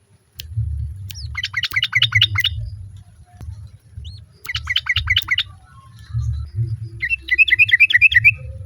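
Yellow-vented bulbul calling in three bursts of rapid chattering notes, each about a second long, over a low rumble.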